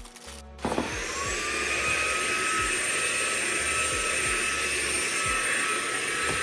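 Vacuum cleaner switched on about half a second in, its motor whine rising quickly and then running steadily.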